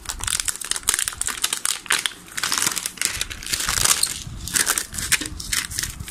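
Plastic bubble wrap around a motorcycle exhaust crinkling and crackling as hands handle it and pull it open, a dense, continuous run of small crackles.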